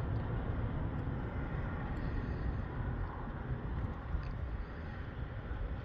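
Steady low rumble of background noise, with a few faint small clicks.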